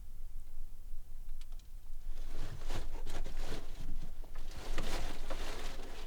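Dense, irregular rustling and crackling that starts about two seconds in, after a few faint ticks.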